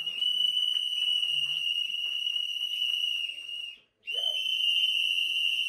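A high-pitched steady whistle-like tone held for nearly four seconds, cutting out briefly and then starting again at the same pitch.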